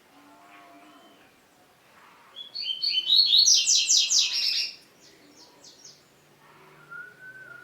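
Double-collared seedeater (coleiro) singing: a loud, rapid run of repeated high notes lasting about two seconds, starting a couple of seconds in, then a few fainter notes. A faint, steady, thin whistled note follows near the end.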